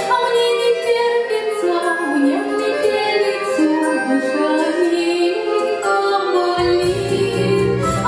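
A woman sings solo in a Russian folk-song style over instrumental accompaniment. Her voice holds and glides between long notes, and a deep bass line enters about two-thirds of the way through.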